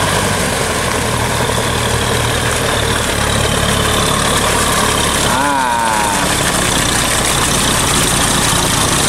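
Kubota diesel tractor engine running steadily as the tractor drives close past on cage wheels through a flooded rice paddy, working the mud with a levelling board. A brief wavering pitched call cuts in about five seconds in.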